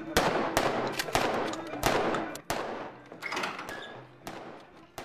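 Celebratory gunfire at a Cretan wedding (mpalothies): rifles and pistols fired into the air in a quick, irregular string of shots, closest together in the first two and a half seconds, then more spaced out.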